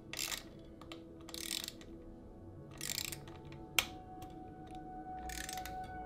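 Ratchet wrench with a hex bit ratcheting in four short bursts as it tightens a bolt on a bicycle crank arm, with one sharp click about four seconds in. Soft background music underneath.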